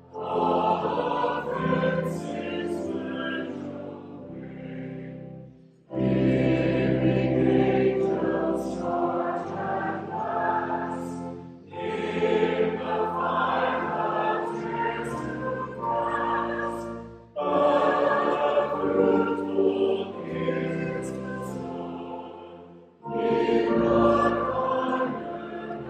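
Choir and congregation singing a hymn in the reverberant sanctuary, phrase by phrase, with a brief pause about every six seconds and steady low sustained notes beneath the voices.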